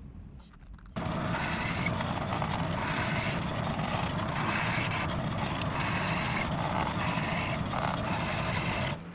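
Drill press running and boring a series of holes into the end of a wooden block, the cutting noise rising each time the bit goes in, about once a second. It starts suddenly about a second in.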